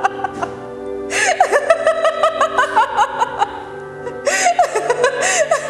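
A woman laughing hard in two fits, the first starting about a second in and the second near the end, over background music with long held tones.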